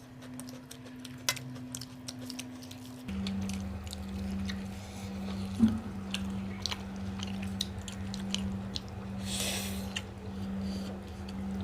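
Close-up chewing and wet mouth sounds of people eating rice and egg curry, with scattered small clicks and smacks. Underneath runs a steady low hum that drops in pitch about three seconds in.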